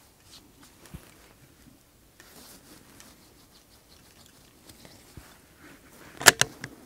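Handling noise from a bolt-action rifle in an aluminium chassis: a few soft clicks and rustles, then a quick run of sharp metallic clicks about six seconds in.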